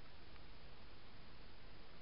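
Steady faint hiss of a trail camera's microphone picking up no distinct sound, with one faint tick about half a second in.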